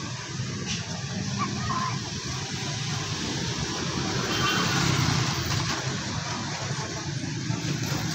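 Road traffic over a railway level crossing: cars and a small pickup truck driving across the tracks, a steady hum of engines and tyres.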